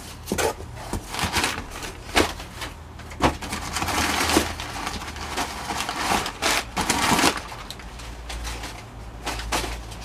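Brown kraft packing paper crumpling and rustling in irregular bursts as it is pulled out of a cardboard shipping box, with cardboard flaps scraping and knocking now and then.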